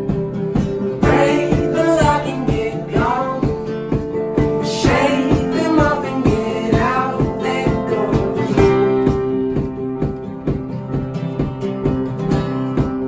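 Instrumental break in an acoustic folk-pop song: strummed acoustic guitar over a steady beat, with a wavering lead melody from about one second in until about eight and a half seconds, after which the chords carry on alone.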